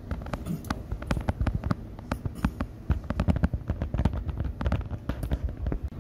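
Wind buffeting the microphone on an open ship's deck: a low rumble with dense, irregular crackles and pops that cut off abruptly near the end.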